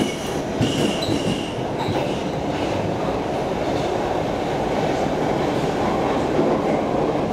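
Stockholm Metro C6 subway car running, heard from inside the car: a steady rumble of wheels on the rails, with a few brief high squeals in the first two seconds.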